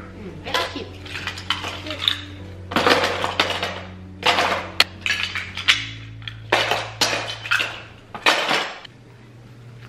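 Small wooden and plastic toy blocks clattering as they are dropped and tossed into a plastic storage bin, in a dozen or so irregular clatters that die down near the end.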